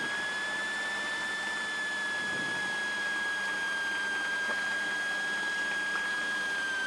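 Light aircraft's piston engine and propeller running at taxi power, heard inside the cockpit: a steady drone with a strong high whine that rises slightly at the start and then holds.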